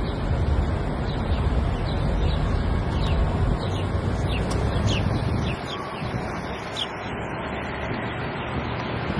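Outdoor traffic noise, a steady rumble that drops away a little past halfway, with birds chirping now and then.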